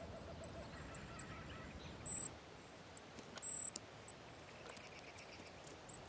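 Faint forest ambience: a low, even hiss with short, very high-pitched bird chirps every second or so.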